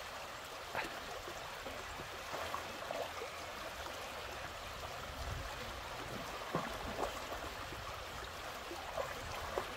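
Shallow, rocky river flowing steadily over stones, with a few faint splashes from a dog wading in the water.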